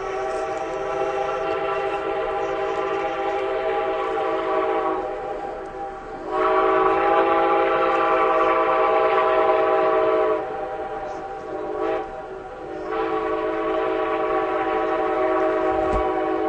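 Train horn sounding a chord of several notes in three long blasts, the middle one the loudest.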